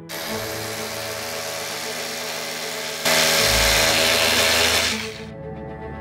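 A power drill running steadily, getting louder about three seconds in and stopping about five seconds in, over background string music.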